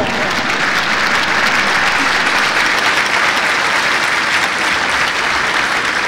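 Audience applauding: a dense, steady clapping from a large crowd.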